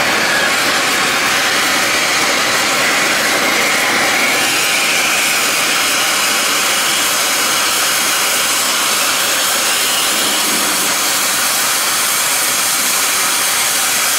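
Oxy-fuel cutting torch flame on a CNC cutting machine hissing loudly and steadily while its gas valves are adjusted to bring the flame to a sharp blue cone.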